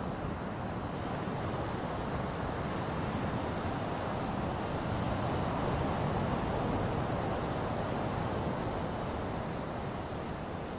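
Ocean surf washing ashore as a steady rush of noise, one swell building to its loudest past the middle and easing off toward the end.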